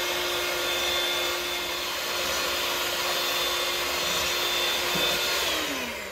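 Electric hand mixer running steadily, its beaters whisking egg whites in a glass bowl. Near the end it is switched off and its whine falls in pitch as the motor winds down.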